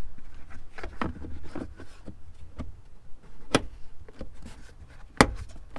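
Plastic under-hood fuse box cover of a Toyota Tacoma being set back in place with light plastic knocks, then pressed down with two sharp snap clicks about a second and a half apart, the second the loudest. The clicks are the cover's latches seating fully, which seals the fuse box against water.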